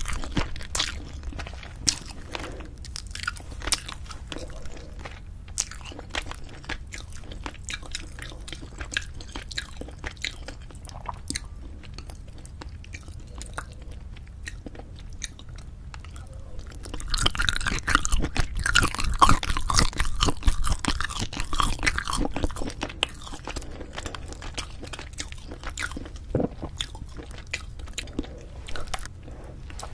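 Close-miked chewing and biting of cheese-topped braised spicy chicken, a run of short, sharp mouth clicks and bites, busier and louder for a few seconds just past the middle.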